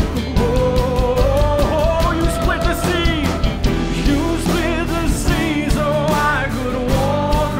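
A worship band playing a contemporary worship song, with steady drums and bass under a singing voice.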